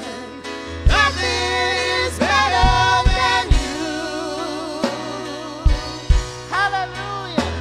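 Live gospel worship song: singers hold long, wavering notes over a drum kit and low bass notes, with kick drum beats every second or so.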